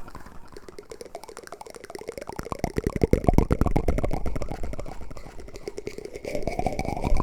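Wooden spoons clicking and scraping in a quick crackly patter, used as an ASMR trigger. It grows louder toward the middle and eases off near the end.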